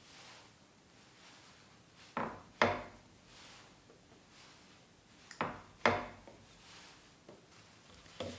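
Light knocks and clatters of kitchen handling on a metal baking tray and wooden worktop, in two pairs about three seconds apart, as cut potato scones are laid on the tray.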